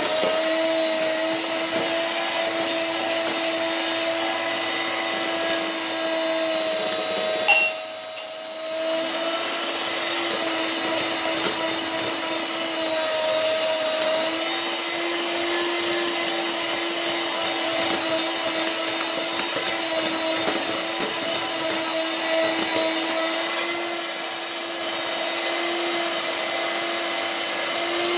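Electric hand mixer running steadily, its beaters whisking a batter of eggs, sugar and oil in a bowl, with a constant motor whine. About eight seconds in there is a click and the motor drops off for about a second, then runs on.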